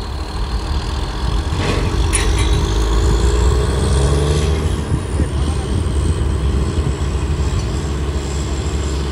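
Diesel engines of a borewell drilling rig and its air-compressor truck running hard, a steady low drone that swells about two seconds in and eases after about five seconds, with a faint high whine rising then falling. The compressor engine is under heavy load, blowing black smoke.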